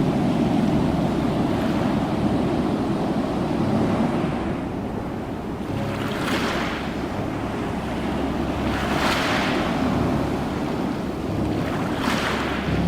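Ocean surf: a steady low rumble of water, with waves breaking and washing in three times in the second half, about three seconds apart.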